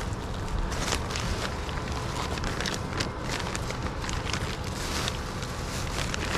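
Irregular footsteps and light knocks over a steady low rumble.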